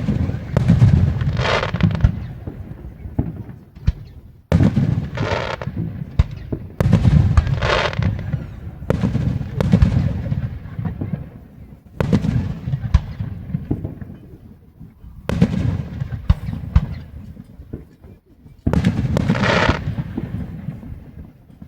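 Fireworks going off: about five sudden booms, each trailing off in a crackling rumble that fades over a few seconds before the next.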